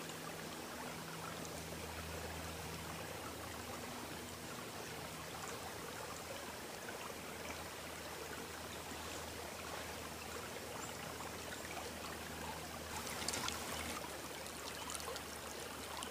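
Steady running-water noise, like a flowing stream, with a faint low hum beneath it. The water gets a little louder and splashier about thirteen seconds in.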